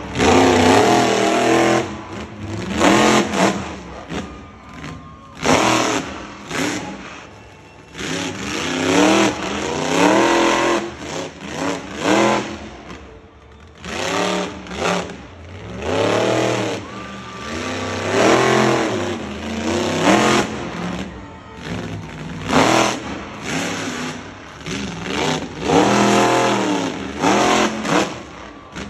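Monster truck engine revving hard again and again, its pitch sweeping up and falling back with each burst of throttle.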